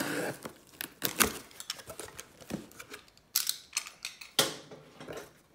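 Clear packing tape peeled off a cardboard box and the cardboard flaps pulled open: a string of sharp clicks and crackles with a few longer rasping tears, one about three and a half seconds in and another about a second later.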